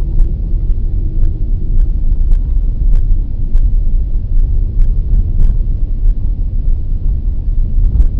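Steady low rumble of a Skoda Octavia A7's tyres and engine driving over a snow-covered road, heard from inside the cabin, with scattered light clicks at irregular moments.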